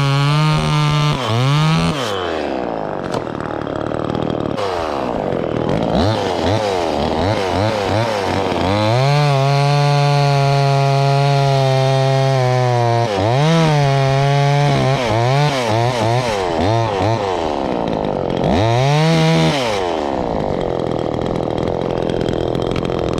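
Chainsaw running in a tree cut, its engine revving up and dropping back again and again, with a long steady stretch at full throttle in the middle and rougher stretches while the chain is in the wood.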